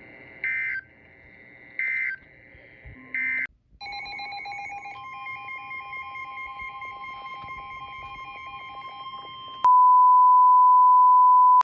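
Three short bursts of digital data tones about a second apart: the SAME end-of-message code closing a NOAA Weather Radio warning. Then come several seconds of layered, pulsing electronic tones. Near the end a loud, steady 1050 Hz weather-radio warning alarm tone cuts in, the tone that opens the next alert.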